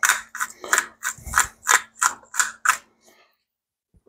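Hand pepper mill grinding pepper in quick, even twists, about three or four a second, stopping about three seconds in.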